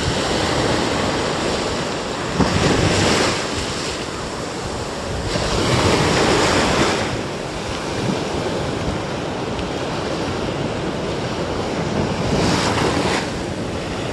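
Small waves breaking and washing up a sandy shore as foamy swash, swelling louder about two and a half seconds in, again around six seconds and near the end, with wind buffeting the microphone.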